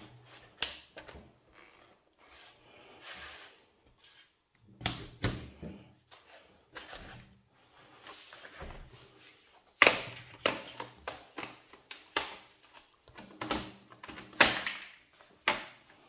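Plastic bottom cover of a Lenovo Ideapad 3 laptop being pried off with a pry tool: irregular sharp clicks and snaps as the case clips release, with knocks from the laptop being handled and turned. The clicks come thicker and louder in the second half.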